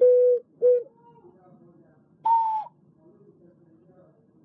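A 12-hole alto C ceramic ocarina blown in separate notes: two short notes at the same lower pitch, a faint higher one, then about two seconds in a longer, higher note with breathy air noise, each note dipping slightly as it ends.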